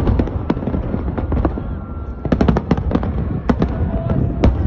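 New Year fireworks going off: a continuous low rumble of bursts with many sharp cracks and pops, bunched into a quick rattle about halfway through.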